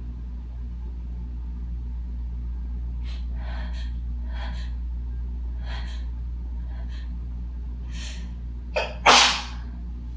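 A person going through a dust sneeze: a run of short, catching breaths in over several seconds, then a quick catch and one loud, harsh sneeze about nine seconds in. A steady low hum runs underneath.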